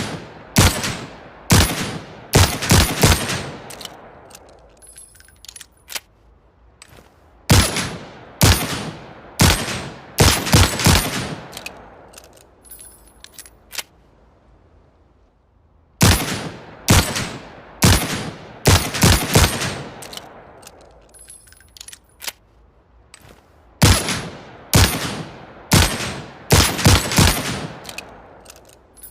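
Manurhin MR 73 revolver fired in four quick strings of about six shots, each shot sharp with a ringing tail. Light metallic clicks fall in the pauses between strings.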